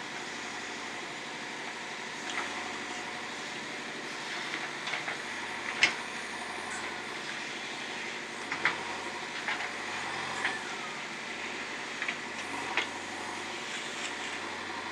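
JCB 3DX backhoe loader's diesel engine running steadily while working, with sharp metallic clanks every second or two, the loudest about six seconds in.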